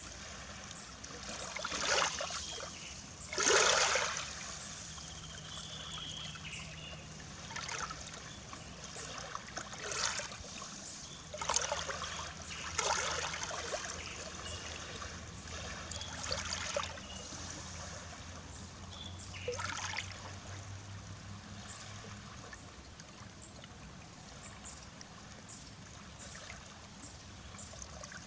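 Small waves lapping and splashing at the Baltic Sea shore, coming in irregular swishes a second or a few seconds apart, the biggest about three and a half seconds in, with a faint low hum underneath.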